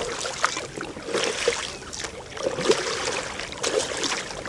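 Double-bladed kayak paddle strokes in calm water: the blades dip and pull with repeated splashes, and water trickles and drips off the raised blade.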